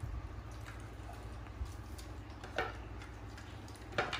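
Light ticks and two sharp taps, about two and a half seconds in and again near the end, as grapefruit segments are handled on a ceramic plate, over a low steady hum.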